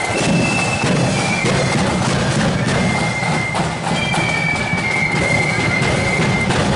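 Marching flute band playing a tune: a high flute melody in held notes over steady drumming.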